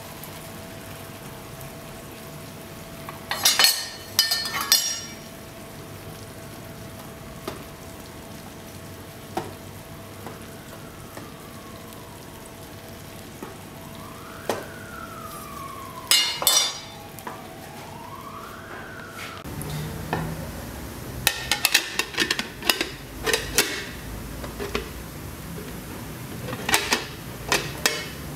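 Caramelized sugar and apples sizzling softly in a frying pan on a portable gas burner, with a few sharp metallic clinks and knocks against the pan; near the end the clatter thickens as the pan and a plate are handled. A faint siren-like wail rises and falls in the middle.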